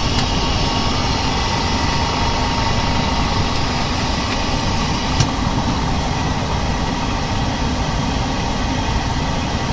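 OCA screen laminating machine running steadily through its pressing cycle, a constant mechanical hum and hiss, with one sharp click about five seconds in.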